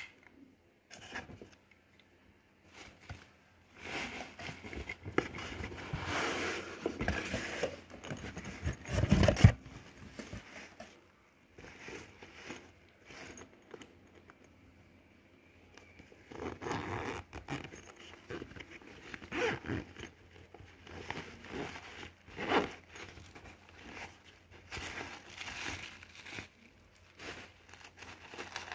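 Unboxing handling noise: plastic packaging and bubble wrap crinkling and rustling in bursts, with scrapes and knocks of items being handled, and one loud thump about nine seconds in.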